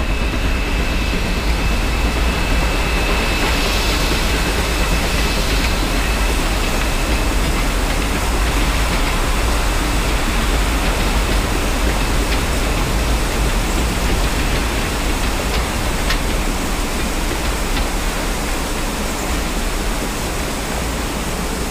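Steam-hauled train crossing a steel girder deck bridge, heard as a steady rushing noise over a low rumble, with a thin high steady tone for the first five seconds or so.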